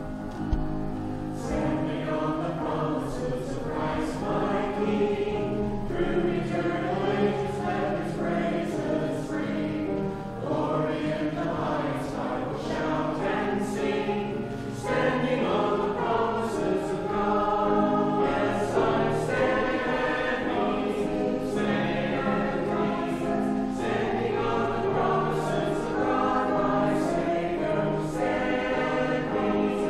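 Small church choir of men's and women's voices singing together.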